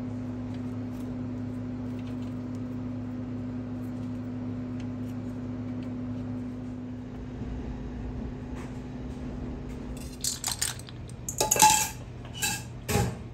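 A steady low hum of kitchen equipment, then in the last few seconds a handful of clinks and clatters of kitchenware being handled, one louder clatter standing out.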